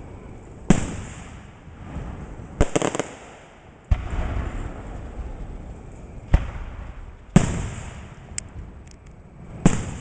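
Fireworks going off: five sharp single bangs, one every second or two, each trailing off in a rumble. About two and a half seconds in there is a quick cluster of crackling pops.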